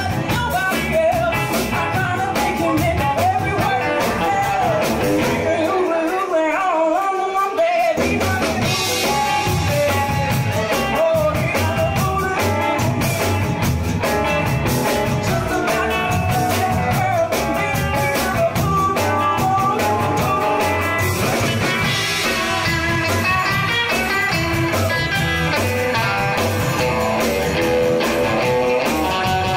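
Rock-and-roll soundtrack music with singing and guitar over a steady beat. The bass and drums drop out for about two seconds around six seconds in, then come back.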